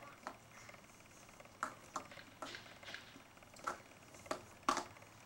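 A toddler's small black shoes tapping on painted porch steps as she steps about holding the railing: about eight irregular footstep taps, the loudest near the end.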